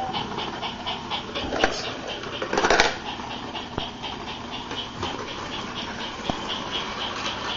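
Battery-powered toy train running, its motor and wheels giving a rapid, even pulsing of about four beats a second. A brief louder clatter comes about two and a half seconds in.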